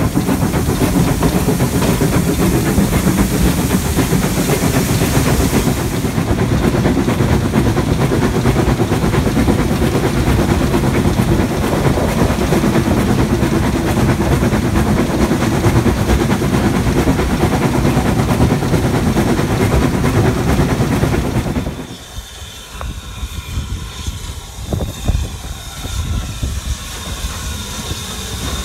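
Loud, steady running noise of a steam-hauled train heard from an open carriage window just behind the locomotive: wheels on the rails and the engine working. About 22 s in it cuts to a standing steam locomotive, a BR Standard Class 4 2-6-0, hissing steam with a few clanks.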